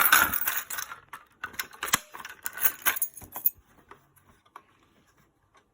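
Plastic fire alarm pull station being handled, with a quick run of rattles and sharp clicks for about three and a half seconds, then only a few faint clicks.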